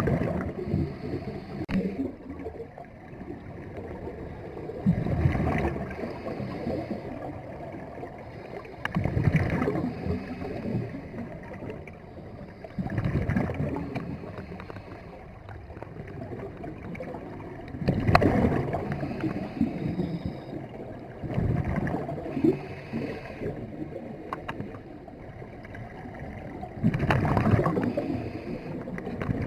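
Scuba diver breathing through a regulator underwater: exhaled bubbles burble out in a loud rush about every four to five seconds, with a fainter hiss of inhaling between them.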